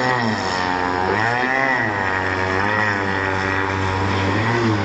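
Small engine of a radio-controlled model speedboat buzzing as the boat races across the water, its pitch swinging down and back up several times.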